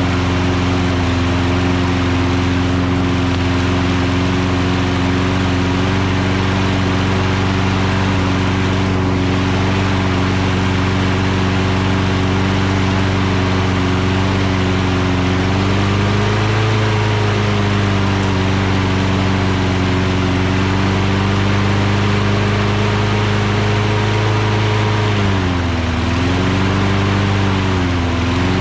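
Briggs & Stratton Quantum single-cylinder four-stroke engine on a Toro Recycler lawn mower running steadily after a carburetor cleaning. It speeds up slightly about halfway through and sags in speed briefly twice near the end.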